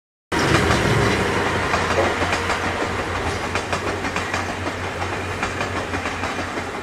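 A steam-hauled passenger train going past, the steam locomotive D51 498 followed by its coaches, with wheels clattering over the rails. The sound cuts in suddenly just after the start and slowly fades.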